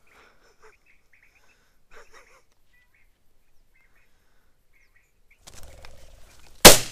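A few faint bird chirps, then a quail flushes with a whir of wings about five and a half seconds in. About a second later comes a single loud shot from an over-and-under shotgun.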